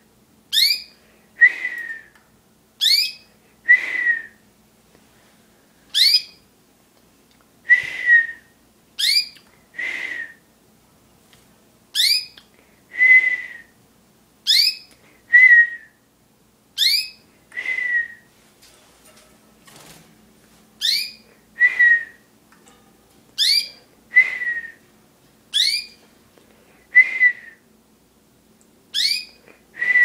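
A person whistling back and forth with small caged birds: short sharp rising chirps alternate with a whistled note, a pair about every one and a half seconds, with a brief lull a little past the middle.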